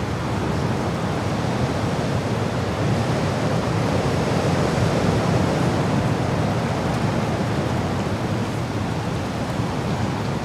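Steady rushing wind, heaviest in the low end, swelling slightly in the middle.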